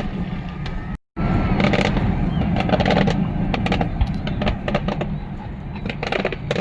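Fireworks display: many sharp pops and crackles over a steady low rumble. The sound drops out completely for a moment about a second in.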